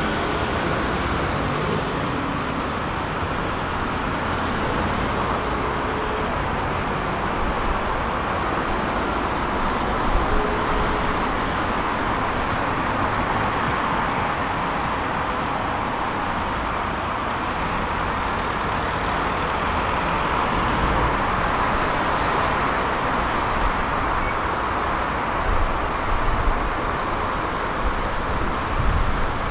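Steady running noise of a city tram in motion, a continuous rumble of motors and wheels on the rails, with street traffic around it.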